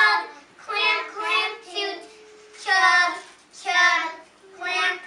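Young children singing a nursery action song together, in short high-pitched phrases with brief gaps between them.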